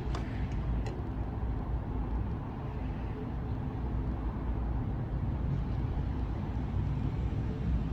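Steady low rumble of outdoor background noise, with a couple of faint clicks in the first second.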